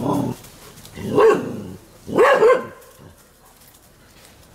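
Indian pariah dogs (INdogs) giving alarm barks at a spectacled cobra. A lower, drawn-out sound at the start is followed by a sharp bark about a second in and a quick double bark just after two seconds. This special barking is, by the owner's account, always the sign of a snake.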